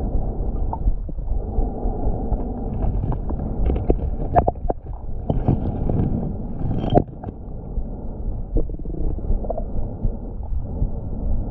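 Muffled underwater rumble heard through a submerged camera, with a run of sharp knocks and clicks about halfway through as stones on the lake bottom are lifted and shifted by hand, hunting for crawdads.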